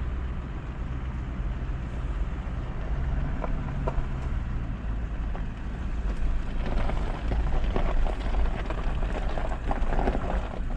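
Motor vehicle driving with a steady low rumble, a low hum fading out about three seconds in, and light rattles and knocks in the second half.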